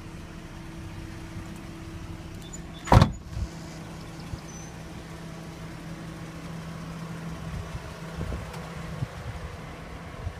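A 2014 Ford Mustang's door shutting with one loud thud about three seconds in, followed by a smaller knock, over a steady low hum.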